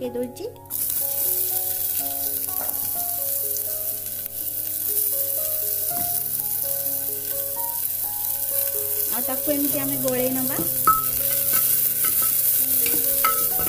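Chopped onion hitting hot ghee and cumin in a pressure cooker, sizzling steadily; the sizzle starts suddenly under a second in.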